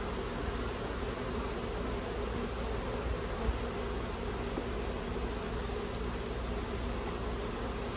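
A honeybee colony buzzing steadily around an open hive as its frames are inspected, with one brief tap about three and a half seconds in.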